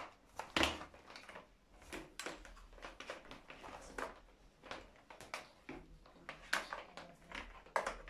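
Irregular clicks, knocks and rustles from handling an Arnica Hydra Rain Plus water-filter vacuum's plastic hose, wand and power cord; the vacuum motor is not running.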